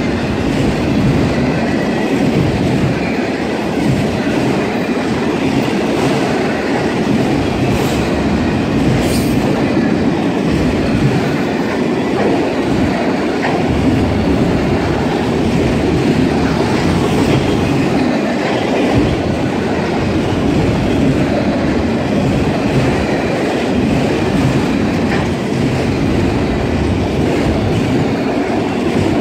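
A freight train of autorack cars rolling past at trackside: steady, loud noise of steel wheels running on rail, with a faint high wheel squeal above it.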